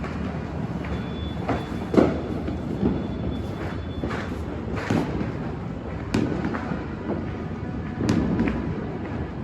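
Scattered New Year firecracker and firework bangs, some near and some distant, going off irregularly about every second or two over a steady background hum. The loudest bang comes about two seconds in.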